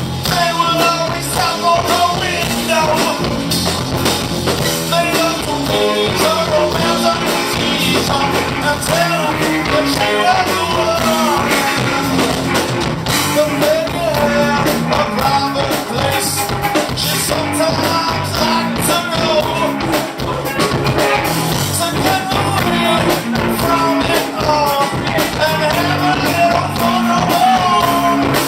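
Rock band playing with drum kit and guitar under a wavering melody line, sung or played as a lead.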